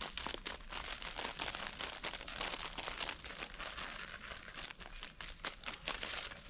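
Irregular crunching and rustling, made of many short crackles close together.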